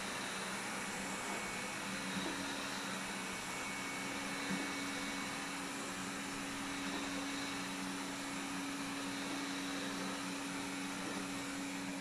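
Xiaomi Mijia 1C robot vacuum running steadily mid-clean: its suction fan gives a steady whir with a low hum and a thin whine, and there is a small knock about four and a half seconds in.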